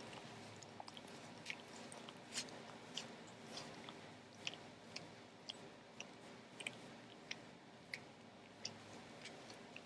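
Cavalier King Charles spaniel licking and nibbling at its paw, a run of soft wet smacking clicks coming unevenly, about one or two a second.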